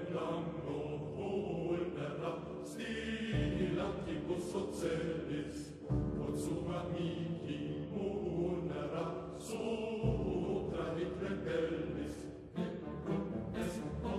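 Choral background music: a choir singing long held chords over low instrumental notes that come in afresh every few seconds.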